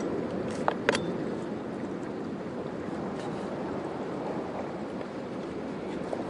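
Steady wash of surf on a rocky shore, with two sharp clicks a little under a second in.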